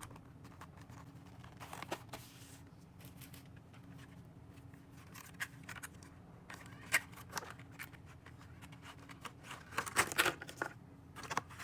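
Quiet handling of stationery and packaging: scattered light clicks, scratches and rustles, with a cluster of sharper clicks about ten seconds in.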